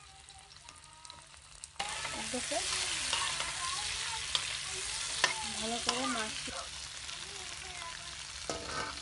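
Hot oil in a pan breaking into a sudden sizzle about two seconds in as large salt-and-turmeric-marinated prawns are dropped in to fry. The frying runs steadily, with a few sharp spatter pops.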